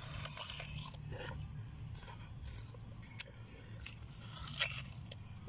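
A person biting into the flesh of a watermelon through a hole in its rind: a series of short, irregular wet crunches, the loudest a little after four and a half seconds in.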